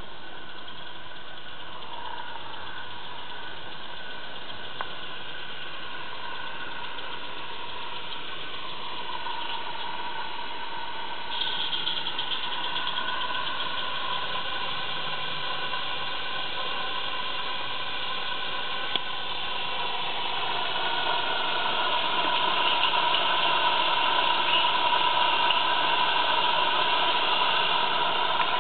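Small live-steam garden-railway locomotive running along the track, a steady steam hiss with a mechanical beat. The hiss jumps up sharply about eleven seconds in, and the sound grows louder over the last third as the engine comes closer.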